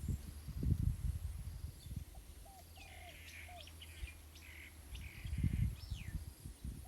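Strong wind gusting on the microphone in low rumbling bursts, loudest near the start and again about five seconds in. Birds chirp and call in the background about halfway through, with a few quick sliding chirps.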